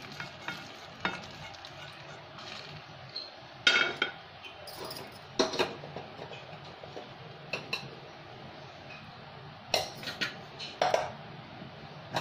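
Silicone spatula scraping dry-roasted coriander seeds out of a nonstick pan into a steel bowl, followed by scattered sharp knocks and clinks of kitchen utensils and cookware being handled, loudest about three and a half, five and a half, ten and eleven seconds in.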